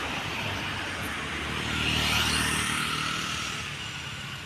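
Road traffic noise: vehicle engine and tyre noise that swells to its loudest about two seconds in, then fades.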